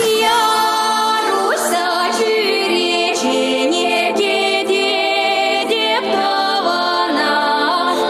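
A Chuvash song sung by several female voices in harmony, holding long notes and sliding between pitches.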